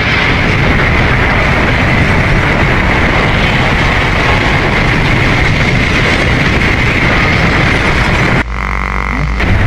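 Cartoon window air conditioner racing out of control: a loud, dense mechanical rattling roar as it overheats. It cuts off abruptly about eight and a half seconds in, leaving a quieter steady hum.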